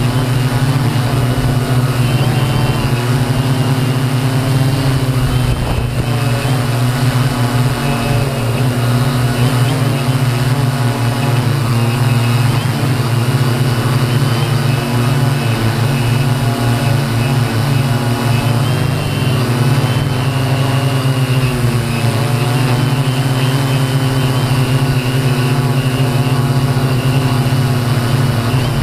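Align M480 multirotor's electric motors and propellers, heard from its onboard camera: a steady, loud drone whose pitch wavers slightly with throttle changes.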